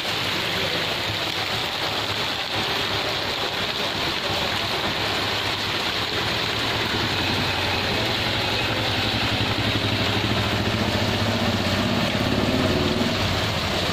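Steady rain falling on a wet street, with a motor vehicle engine running underneath that grows stronger from about halfway and is loudest near the end.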